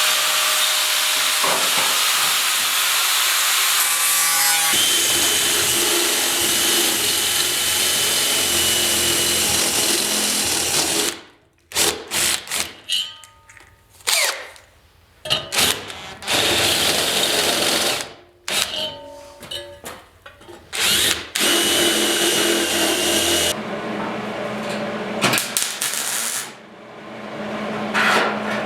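Hand-held power tool cutting out an old repair in a steel running board. It runs steadily for about eleven seconds, then in short on-off bursts with gaps between them, then steadily again.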